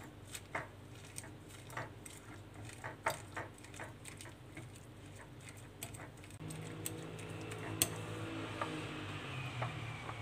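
Metal fork mashing ripe peach on a ceramic plate: irregular clicks and taps of the tines against the plate. A low steady hum comes in about six and a half seconds in.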